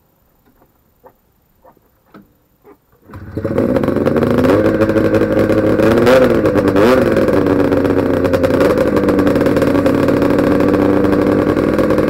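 Ski-Doo Formula Plus 521 snowmobile's two-stroke twin engine catching on a cold start about three seconds in, after a few faint clicks. It is revved briefly twice, then settles into a steady idle.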